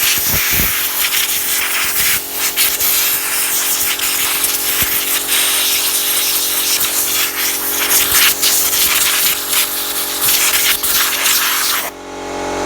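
Compressed-air blow gun hissing loudly and continuously as it blows brake dust out of the brake assembly, wavering as the nozzle moves, then cutting off suddenly near the end.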